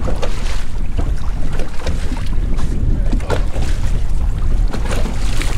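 Wind buffeting the microphone on open water: a steady low rumble with gusts, and short bursts of water noise against the boat.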